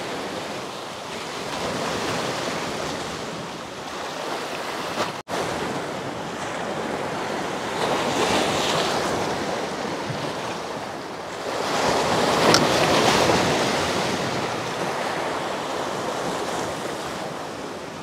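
Sea waves breaking and washing over the shore rocks, the surf swelling and easing in slow surges, loudest about eight and twelve seconds in. A brief dropout about five seconds in.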